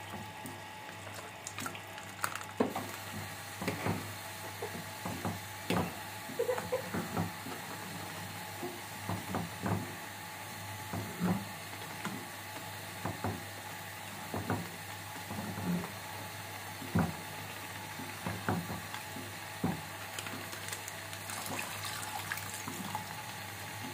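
Milk poured from a plastic pouch into a kadai of cooked grated carrots for gajar ka halwa, then a wooden spatula stirring it, with irregular knocks and scrapes against the pan. More milk is poured in near the end.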